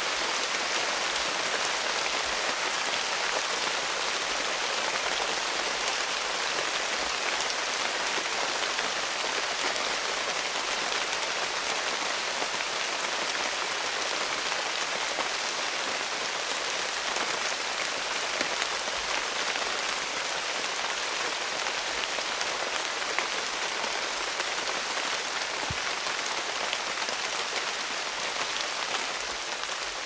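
Heavy rain falling on rainforest foliage: a steady, even patter of drops hitting leaves close by, with more rain on the canopy behind.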